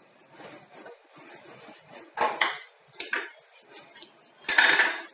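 Kitchenware clattering: a serving dish and utensils knocking and scraping a few times, the longest and loudest scrape near the end.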